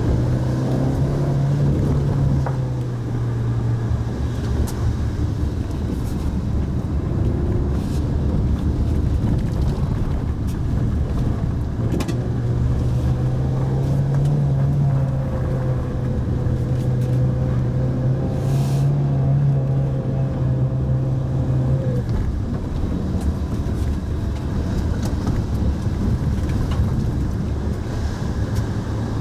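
Mitsubishi Pajero Mini kei car being driven, its engine running steadily over a constant rumble of tyres on the road. The engine note stands out for the first few seconds and again through the middle, and sinks back into the road rumble in between, with a few faint knocks.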